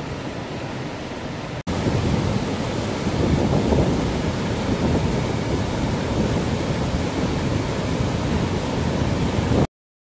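Krimml Waterfalls rushing: a steady, dense noise of falling water. It gets much louder after a cut about a second and a half in, when it is heard right beside the white water, and stops abruptly near the end.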